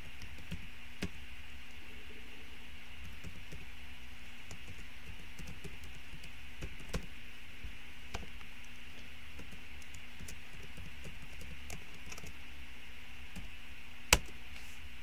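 Keys clicking irregularly on a computer keyboard as text is typed, over a steady hum. One much louder click comes near the end.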